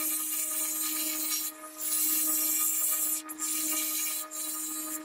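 Stick (SMAW) welding arc crackling and sizzling steadily on a steel pipe joint, breaking off briefly about three times, over a steady low hum.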